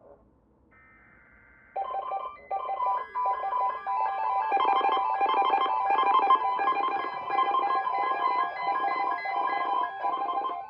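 Electronic emergency alert tone, starting suddenly about two seconds in and pulsing rapidly, about one and a half beeps a second, after a faint trilling ring.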